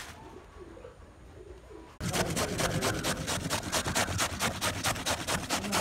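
Raw potato being grated on a metal grater: quick rhythmic scraping strokes, about five a second, starting suddenly about two seconds in.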